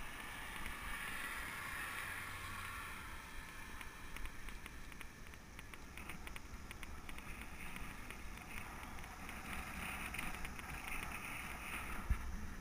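Wind rushing over the microphone of a camera on a moving bicycle, with steady tyre and road noise on asphalt. A single bump comes near the end.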